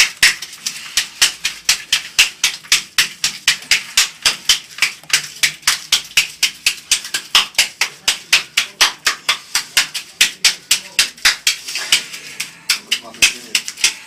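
Latex-gloved hand rapidly slapping tanning cream into a bodybuilder's bare back, an even run of about four or five smacks a second. The cream is being smacked in so it doesn't blotch.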